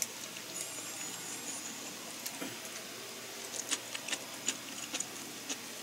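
Scattered light clicks of eating utensils against dishes during a meal, irregular and more frequent in the second half, over a steady faint background hiss.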